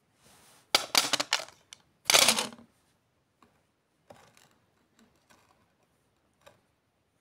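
Polished stones handled in cotton-gloved fingers on cloth: a quick run of clicks and rubbing about a second in, then a louder rustling scrape, then a few light clicks.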